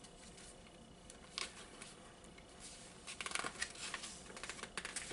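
Pages of a paper booklet being handled and flipped: a faint single tap about a second and a half in, then a run of papery rustles from about three seconds in.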